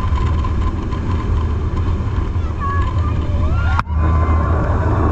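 Jet boat running at speed over open water: a steady low engine rumble under rushing wind and spray, with a whine that wavers in pitch in the second half and a short break about four seconds in.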